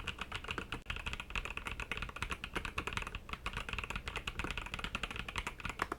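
Fast, continuous typing on an Akko 5075B Plus mechanical keyboard: a quick run of key clacks, many strokes a second.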